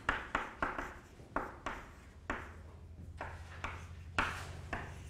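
Chalk writing on a blackboard: a string of short, sharp taps and scratches, irregularly spaced, as a formula is written out stroke by stroke.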